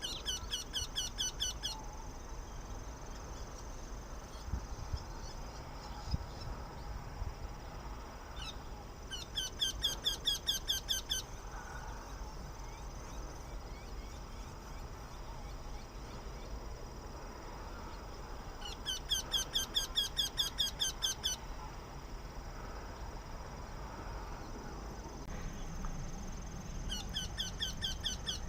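Eurasian wryneck calling: four runs of quick, ringing, evenly repeated notes, about seven a second, each run lasting about two seconds, with roughly eight seconds between runs.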